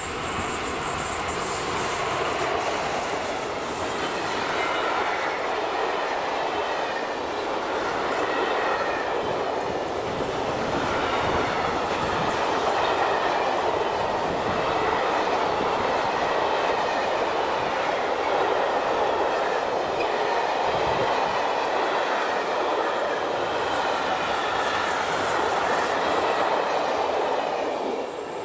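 Electric-hauled freight train of empty flat wagons rolling past at speed, a steady noise of wheels running on the rails. The noise drops away just before the end as the last wagon passes.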